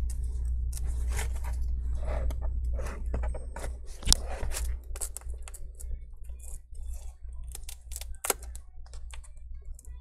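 Metal pry tool scraping and clicking along a Dell XPS laptop's screen bezel as the adhesive-glued bezel is pried loose: irregular sharp clicks and scratchy ticks, one louder snap about four seconds in, over a low steady hum.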